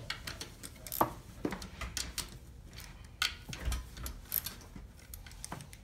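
Hand socket ratchet clicking in short strokes, with scattered metal tool clinks, as valve cover bolts are snugged down evenly one after another.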